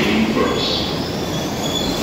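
R62 subway train running past a station platform: a steady rumble of wheels on rails with a faint high squeal rising slowly in pitch.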